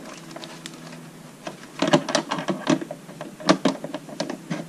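Handling noise as a uAvionix tailBeacon is pushed and seated into an aircraft tail cone: a cluster of sharp clicks and knocks in the second half, over a steady low hum.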